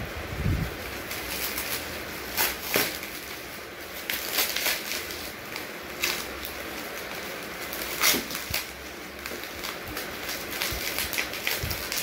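Plastic bubble-wrap and a thin plastic bag crinkling and rustling as they are pulled off a DVD player by hand, with irregular sharp crackles over a steady hiss.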